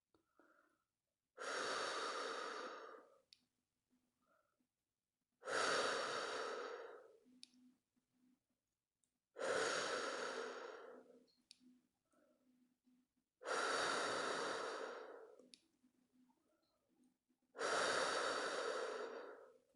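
A person breathing slowly and deeply, five long audible breaths about four seconds apart, each fading out: slow, relaxed deep breathing.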